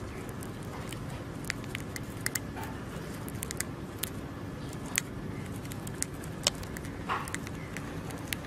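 A hamster nibbling a piece of food, giving small irregular crunching clicks over a steady low background noise.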